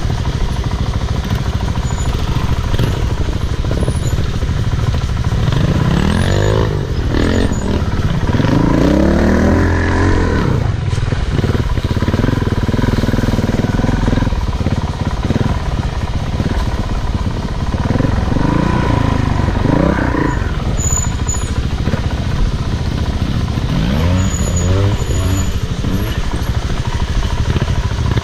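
Off-road motorcycle engine revving up and down several times while riding, over a steady low rumble.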